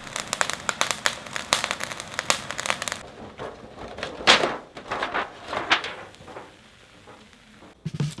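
Dense crackling and popping from inside a foil-lidded aluminium tray on a burner for about three seconds. Then come two loud crinkles of the aluminium foil as gloved hands grip the tray and its lid.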